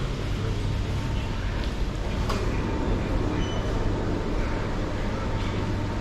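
Airport lounge room tone: a steady low hum with a faint thin tone and a few scattered soft clicks.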